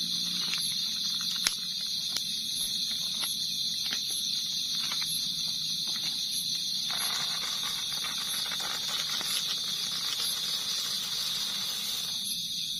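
Crickets and other night insects trilling in a steady high-pitched drone, with a higher chirp pulsing over it, and small cracks from a wood campfire. From about seven seconds in, a rustling hiss of snacks being poured out of their packet.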